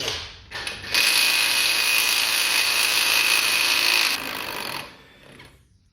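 Pneumatic impact wrench running for about three seconds, loosening the 30 mm front driveshaft hub nut, then easing off briefly before stopping.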